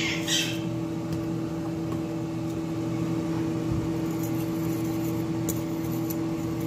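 A metal fork stirring and scraping through flour in a bowl, with a brief scrape right at the start and a few light clinks against the bowl around the middle. A steady machine hum runs underneath throughout.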